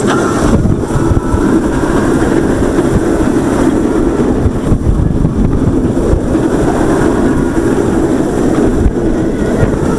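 Banshee roller coaster train running on its track, a loud steady rumble with wind on the microphone.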